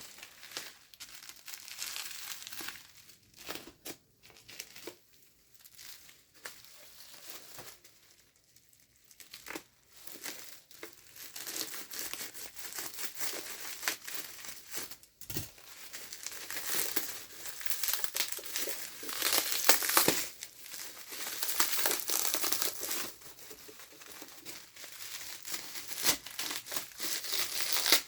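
Packaging being unwrapped by hand: irregular crinkling and rustling with some tearing, busier and louder in the second half, and a single low thump about halfway through.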